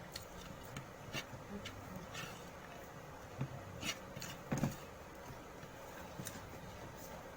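Close-up eating sounds: scattered small clicks, crunches and mouth noises of someone chewing and handling a spoon and plate, with one slightly louder smack about halfway through.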